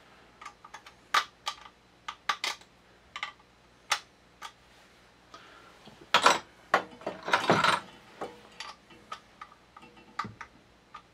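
Irregular sharp clicks and taps of stainless-steel shotgun parts and hand tools being handled on a workbench, with a busier stretch of clattering about six to eight seconds in.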